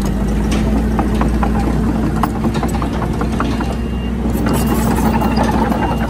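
Komatsu D31PX bulldozer's diesel engine running steadily, with scattered sharp clicks and rattles over the engine note.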